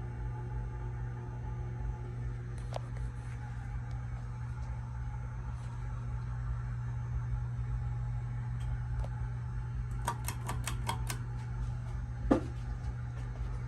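Home Pride Hugger ceiling fan running with a steady low hum. About ten seconds in comes a quick run of about eight clicks, and a single knock follows near the end.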